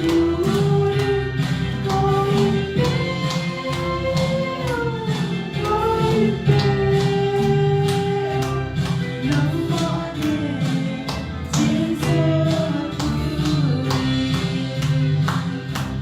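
Gospel worship music: singing voices over instruments with a steady beat and tambourine.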